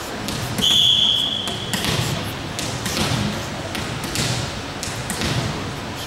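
Referee's whistle blown once, a steady high tone of about a second near the start, signalling the serve. It is followed by scattered thuds of a volleyball bouncing on the hardwood gym floor.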